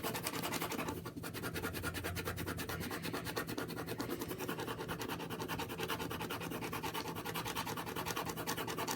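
Pen scratching rapidly back and forth on paper while colouring in, a steady run of quick strokes.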